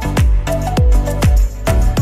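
Upbeat electronic dance music with a deep kick drum about twice a second and a melody line over it.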